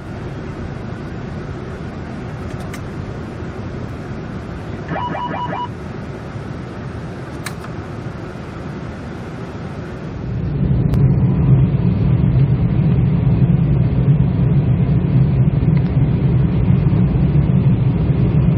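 Boeing 747-400 cockpit noise: a steady rumble of engines and airflow, with a short run of rapid beeps about 5 seconds in. About 10 seconds in, the low rumble becomes clearly louder and stays that way.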